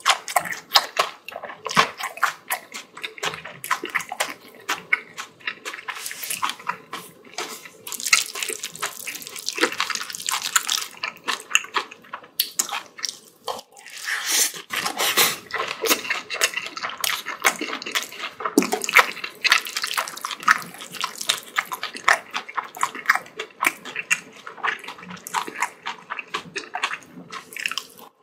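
Close-miked mukbang eating sounds: wet chewing and lip-smacking on mouthfuls of spicy bibimbap, a fast, unbroken run of small wet clicks.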